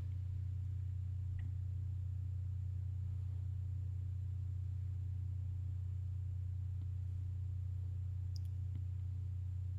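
Steady low electrical hum with a few faint, light plastic clicks spread through it as a laptop's hinge cover plate is pressed back into place above the keyboard.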